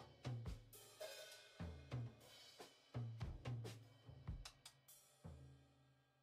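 Background music: a drum-kit beat with bass notes, snare and cymbals. It ends with a last hit about five seconds in that rings away.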